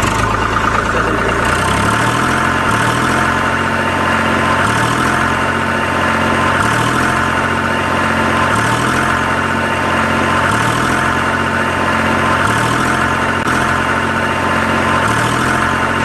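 Small motor of a DIY mini tractor running steadily: a constant whine over a low thrum that repeats about every two seconds.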